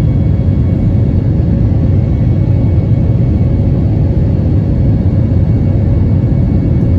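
Steady low rumble inside the cabin of an Airbus A320-family jet in flight: engine and airflow noise heard from a window seat over the wing, with a faint steady hum above it.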